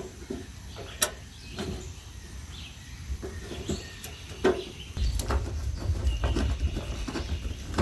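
Scattered light clicks and knocks of gazebo parts and hardware being handled during assembly, over outdoor background noise. A low rumble sets in about five seconds in.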